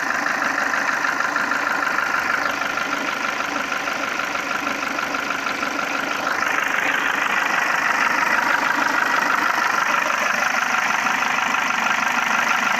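Peugeot 307's 1.6 TU5JP4 petrol engine running with a fast, steady knocking. The owner takes it for three pistons knocking on their skirts (piston slap), and hydraulic-lifter additives have not cured it. The sound grows somewhat louder and brighter about six seconds in.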